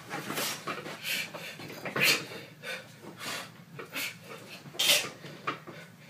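A man panting and grunting in short, heavy breaths about once a second while straining to push a loaded barbell off his chest on a weight bench.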